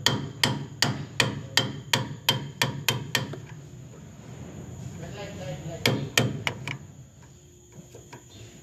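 Hammer blows on a steel chisel: a steady run of about ten sharp strikes, roughly three a second, stopping about three seconds in, then after a pause a few more quick blows about six seconds in.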